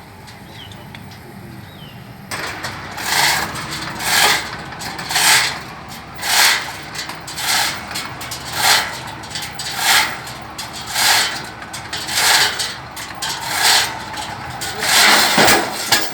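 A pile-driving hammer strikes a precast concrete pile in a steady rhythm of about one blow a second, over the steady running of the rig's engine. This is the series of blows recorded during a Pile Driving Analyzer test.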